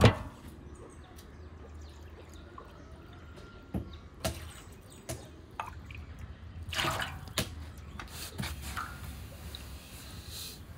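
Water dripping and splashing into a wide aluminium pan partly filled with water, with a few light clicks, and a short splash about seven seconds in as water is poured into it from a glass.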